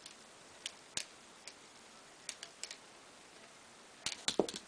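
Plastic and wire coat hangers clicking and clacking against each other as they are moved about: a few light, scattered clicks, then a quick run of louder clacks about four seconds in as a kitten pounces on them.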